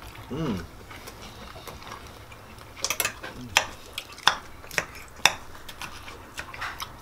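Metal forks and knives clinking and scraping against ceramic plates while steak is being cut and eaten: several sharp clinks, most of them in the second half.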